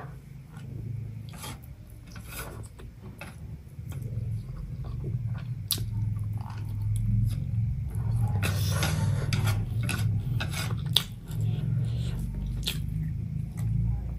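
Close-miked eating of instant noodles: strands slurped and chewed, with a longer slurp about eight or nine seconds in, and light clicks of chopsticks against a plastic plate.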